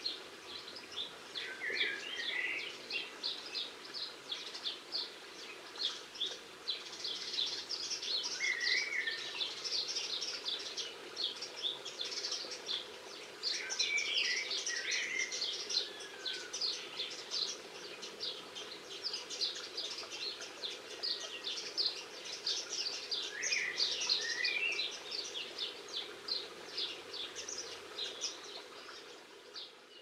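Several small garden songbirds chirping and twittering in quick, dense runs, with a few lower warbled phrases mixed in, over a faint steady hum. The sound fades out near the end.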